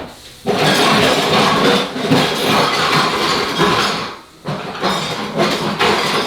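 Dishes, pots and pans clattering and banging loudly in a kitchen, in two long stretches with a short break a little past halfway.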